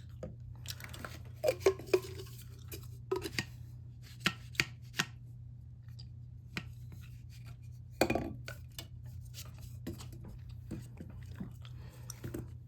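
Irregular light taps, clicks and knocks as small parts and tools are handled and set down on a work surface, with a steady low hum underneath.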